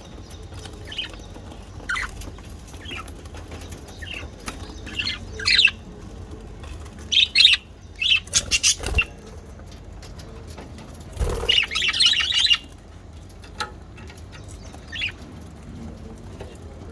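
Budgerigars chirping and squawking in short, scattered calls, with wing flapping. The loudest burst comes about eleven seconds in.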